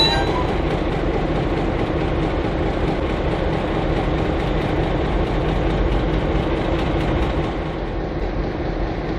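Diesel engine of a Y class shunting locomotive idling, a steady low rumble with an even hum.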